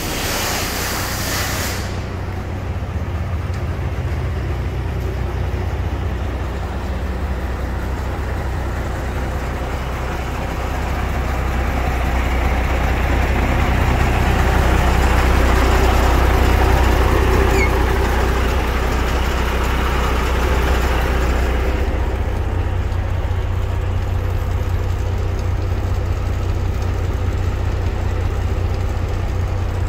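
MAN 26.361 truck's six-cylinder diesel engine idling steadily, with a hiss in the first two seconds. After about 22 seconds it is heard from inside the cab and sounds more muffled.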